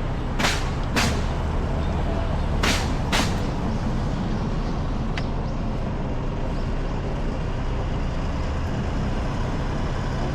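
Steady road-traffic rumble, with four short, sharp hisses in two pairs within the first few seconds.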